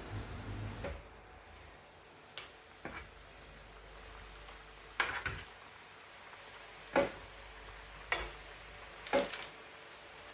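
Kitchen utensils knocking and clicking against cookware while chicken is fried: about six sharp knocks spread irregularly a second or two apart. A low steady hum stops about a second in.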